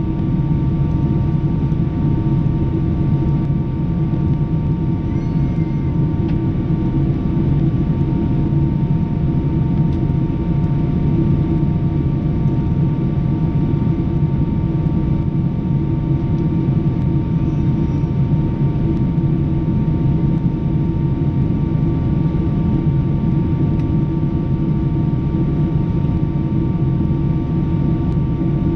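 Steady cabin noise in a Boeing 777-200 in flight: the drone of the jet engines and rushing airflow, with a few faint steady tones held above the low rumble.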